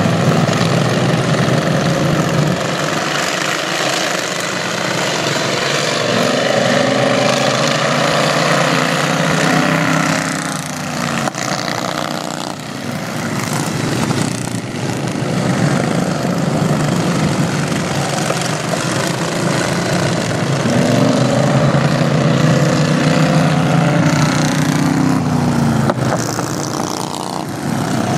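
Several racing lawn tractor engines running hard together as the pack laps a dirt track. The engines fall in pitch as machines pass close, and the sound eases for a few seconds near the middle.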